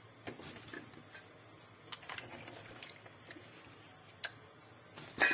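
Hands sloshing sliced apples and pears in a bowl of water and lifting them out, faint small splashes and drips with scattered soft taps and clicks.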